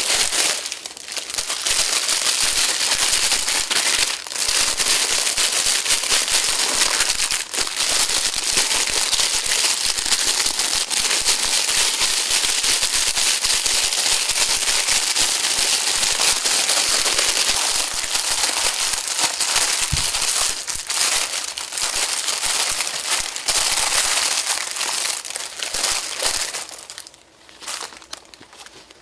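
Plastic packaging crinkling and rustling as a pair of flip-flops in a clear plastic bag is pulled from a poly mailer and handled, a dense run of small crackles. The crinkling dies down near the end.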